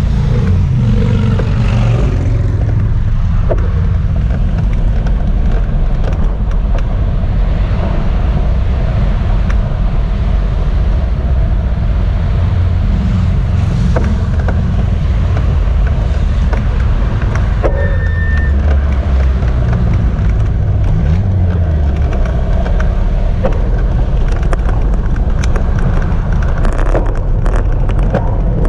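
Steady low rumble of road traffic and car engines close by, mixed with wind on the action camera's microphone. A short high-pitched squeak comes about two-thirds of the way through.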